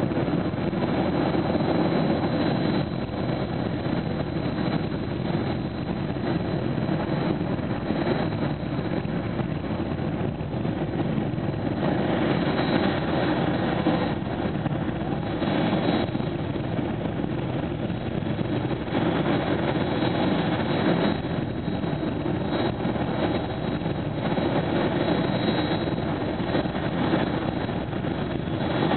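Jet car's jet engine running steadily, its exhaust flame blasting into a wrecked car, with small swells in loudness.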